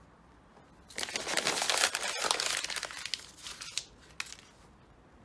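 A sheet of paper crumpled into a ball by hand: a dense crackling rustle for about three seconds, starting about a second in, then a single light tap.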